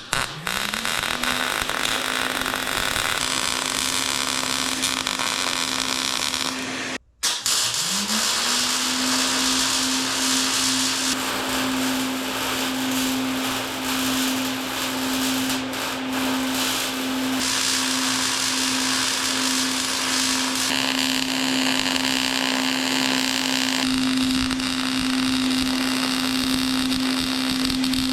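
Electric angle grinder spinning up and running at speed on steel, its steady high whine under a harsh grinding hiss that changes as the disc is pressed on and lifted off. It is switched off briefly about seven seconds in, then spins up again and keeps grinding.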